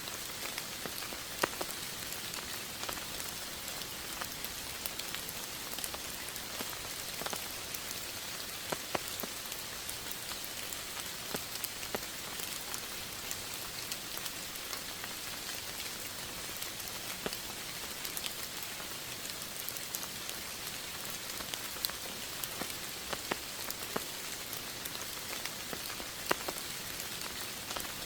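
Steady rain with many individual drops ticking sharply against a surface.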